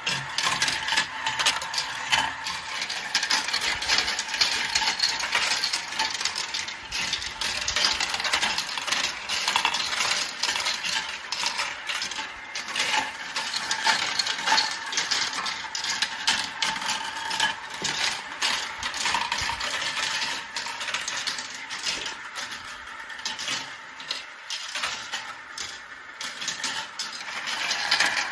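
Marbles rolling and clacking through a marble run track: a rapid, uneven clatter of small hard clicks.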